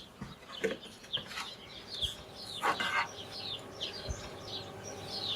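Small birds chirping over and over, each call a short quick downward note, with a few faint knocks in between.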